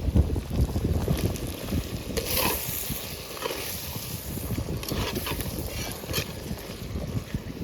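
Wind buffeting the microphone with a low, steady rumble, broken by a few short, brighter noises about two, three and a half, five and six seconds in.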